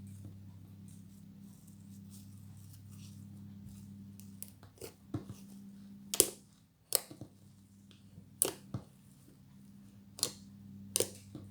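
Fluffy slime being squished and stretched by hand for ASMR, giving scattered sharp pops and clicks from about four seconds in, over a steady low hum.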